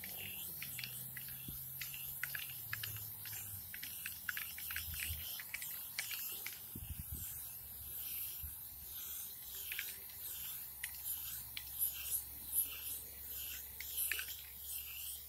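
Aerosol spray paint can hissing as paint is sprayed onto a concrete wall, in repeated swelling passes, with small clicks and scrapes of handling.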